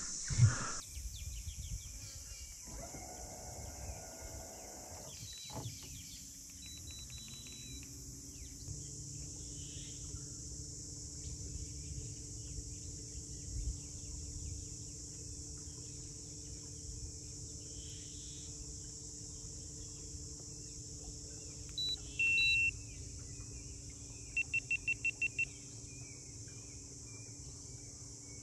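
A steady, high-pitched drone of insects, with a low steady hum coming in about five seconds in. About three-quarters of the way through, an electronic device gives two short beeps, then a quick run of six beeps.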